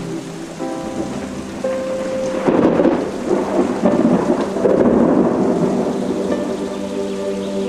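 Steady rain with a rumble of thunder swelling up from about two and a half seconds in and fading by about five and a half seconds, over soft sustained music tones.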